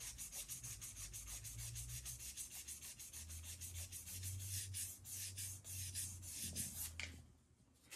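Quick, rapid rubbing strokes of hand sanding on the metal inner platter of a Linn LP12 turntable, several strokes a second, working out oxidation pitting. The sanding stops about seven seconds in.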